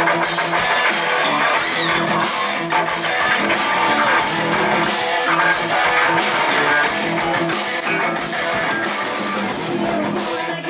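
Live rock band playing: electric guitars over a drum kit keeping a steady beat about twice a second.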